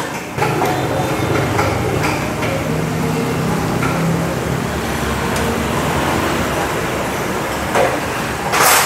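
Steady motor-vehicle engine and traffic noise, with a few light clicks and a short, loud hiss or clatter near the end.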